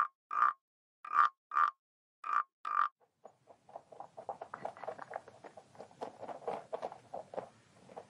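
A frog croaking in pairs of short croaks, three pairs about a second apart. About three seconds in, the croaking gives way to a rapid, irregular run of soft crackling clicks: a rabbit nibbling and chewing grass.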